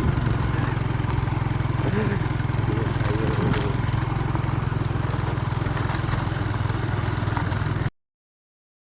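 A small engine running steadily with an even low hum, with faint voices a couple of times; the sound cuts off suddenly near the end.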